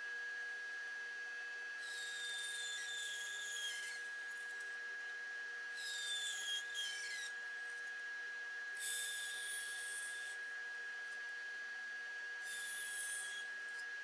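Power saw running with a steady whine, making four short cuts through wood while cutting a tenon; the pitch sags during each cut as the blade takes load.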